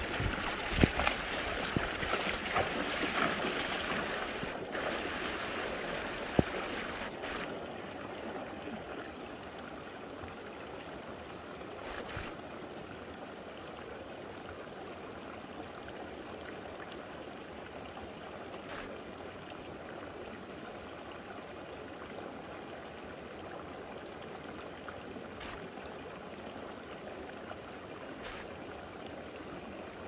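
Shallow mountain stream running over stones, a steady rush of water. It is louder and splashier for the first seven seconds or so, with a few knocks, as someone moves through the water, then settles to an even flow.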